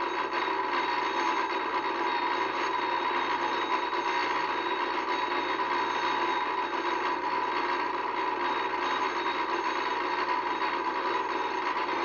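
Alarm clock bell ringing on and on without a break.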